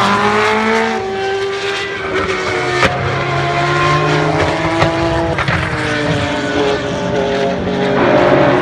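Formula One racing car engines running hard on track, loud and high-pitched. Several engine notes overlap, their pitch sliding and stepping as the cars change speed and gear.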